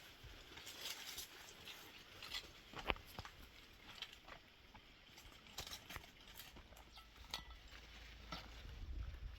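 Scattered light taps and crackles of footsteps and rustling on dry, stony ground, with one sharper click about three seconds in.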